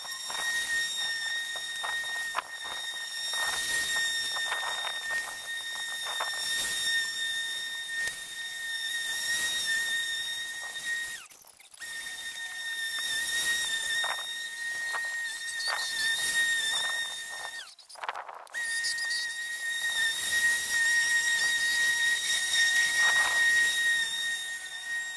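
Ferrex cordless lawnmower running while cutting grass: a steady high-pitched motor whine over a rushing hiss from the blade and grass. The whine drops out briefly twice, about eleven and eighteen seconds in, and comes back each time.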